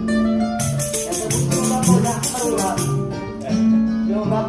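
Choro ensemble playing, cavaquinhos plucked over a guitar, with shaken percussion jingling in quick even strokes for the first few seconds.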